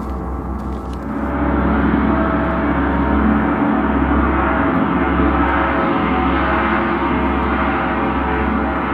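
Several large gongs on stands sounding together in a dense, sustained wash of many overlapping tones, swelling louder about a second in.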